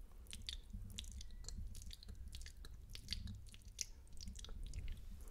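Close-miked wet mouth sounds: spitty lip smacks and tongue clicks in an irregular run of short pops.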